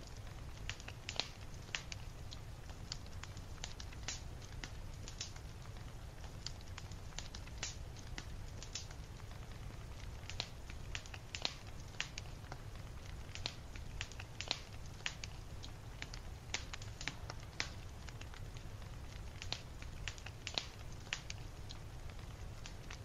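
Steady crackling: irregular sharp pops, a few a second, over a low steady rumble.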